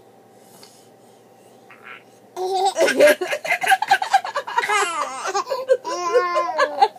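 A baby laughing hard in quick, high cackles, with a woman laughing along. It starts about two and a half seconds in and keeps going in bursts until just before the end.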